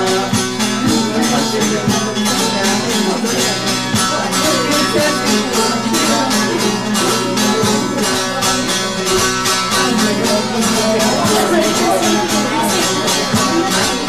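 Instrumental semah music on a bağlama (saz): rapid, even strumming over steady drone strings, without singing.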